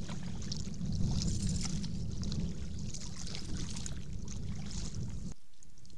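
Kayak paddling: the paddle blade dipping and water trickling and splashing off it in small ticks, over a steady low rumble that drops away abruptly about five seconds in.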